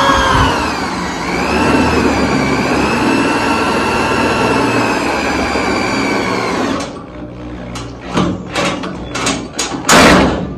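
Electric DeWalt drill driving a self-tapping screw through the sheet-metal inner tail panel: the motor runs with a steady whine for about seven seconds, then a string of short clicks and bursts follows, the loudest near the end, as the screw bites into the solid frame rail behind the panel.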